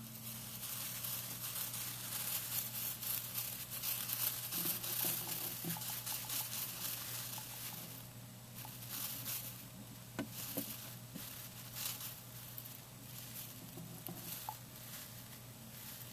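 Russian dwarf hamster rustling and scratching through the bedding in its cage, in uneven spurts that are busiest in the first half.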